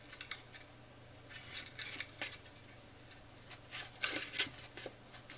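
Thick copper wire being wrapped around itself by hand, giving scattered light scrapes and clicks, with the loudest cluster about four seconds in.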